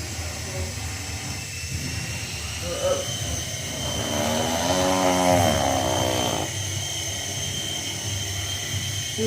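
Small battery-powered flying toy's propeller motors running, a steady high-pitched whine with a lower whirr underneath.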